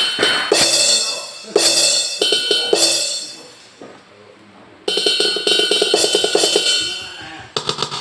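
Sounds of a Roland SPD-20 electronic percussion pad, played through a speaker as its pads are struck with a drumstick: quick runs of hits with ringing, cymbal-like tones. The hits fade out for a second or so around the middle, then start again. This is a playing test of the pad's output after a crackling fault was repaired.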